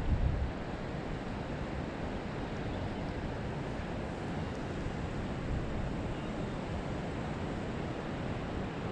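Strong wind blowing steadily as an even rushing noise. A low rumble of wind buffeting the microphone dies away about half a second in.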